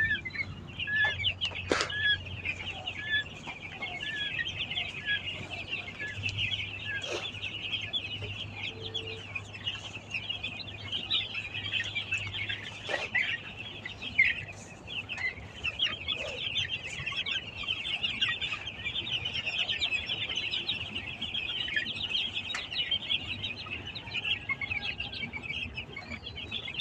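A large flock of young chickens peeping continuously in a dense high-pitched chorus while they pile up together in severe cold, with a faint low steady hum underneath.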